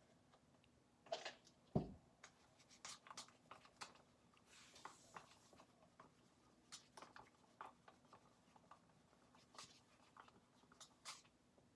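Wooden craft stick stirring paint in a thin plastic cup, tapping and scraping against the cup's sides in faint, irregular ticks. One dull thump just under two seconds in and a brief soft hiss a few seconds later.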